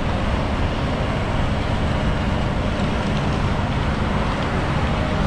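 DAF XF 530 truck, with its PACCAR MX-13 straight-six diesel, running steadily with road noise while driving. The drone is heard from inside the cab.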